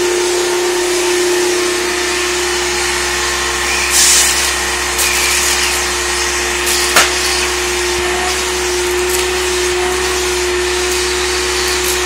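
Hoover Turbopower 2 upright vacuum cleaner running steadily with a constant whine, drawing air through its hose wand along the carpet. A brief rush of air comes about four seconds in, and a single sharp click about seven seconds in.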